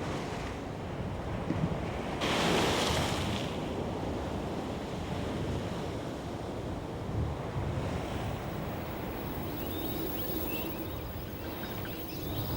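Ocean surf washing onto a beach, with one louder wave breaking about two seconds in.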